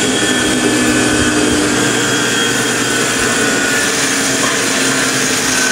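Industrial sewing-machine clutch motor running at constant speed, driving an overlock sewing machine that stitches at speed: a steady, dense mechanical whirr with a thin continuous whine and hum. The motor is being test-run after flood damage, and the owner finds it still working.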